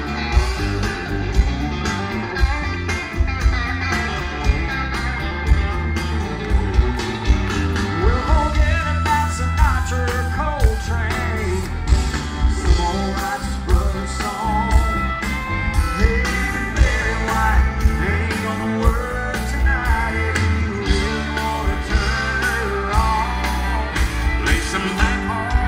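Live country band playing loud over a large outdoor PA, heard from within the crowd: a steady drum beat and heavy bass under singing and electric guitar.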